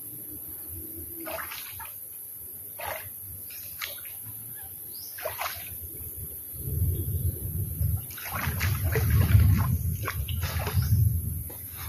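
Floodwater splashing and sloshing as a person wades and moves about chest-deep in it. A few separate small splashes at first, then heavier, near-continuous sloshing with a low rumble from about halfway on.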